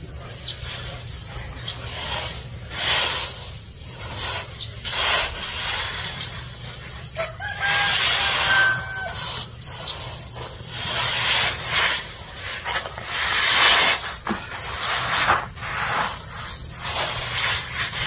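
Harvested unhusked rice being swept and spread by hand on the ground for sun-drying: repeated rustling swishes of grain, about one a second. A rooster crows once, about seven seconds in.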